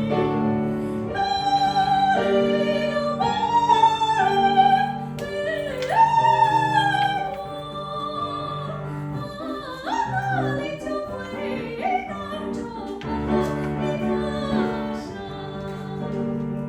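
A high voice singing a melodic line in operatic style with vibrato, over instrumental accompaniment.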